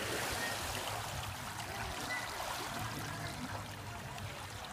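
Swimming-pool water sloshing and trickling as it settles after a splash, slowly fading.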